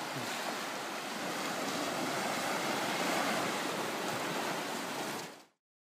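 Small sea waves breaking and washing up the sand in a steady surf wash that swells a little in the middle, then cuts off abruptly near the end.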